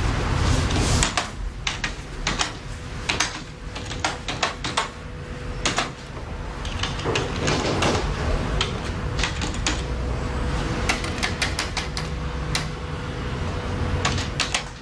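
Typing on a computer keyboard: an irregular clatter of key clicks, with a faint steady hum underneath.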